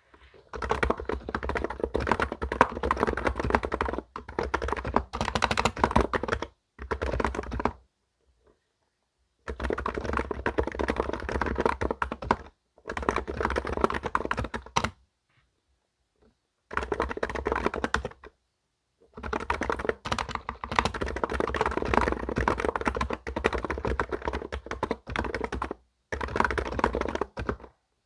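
Fast typing on a computer keyboard, in runs of a few seconds broken by short pauses.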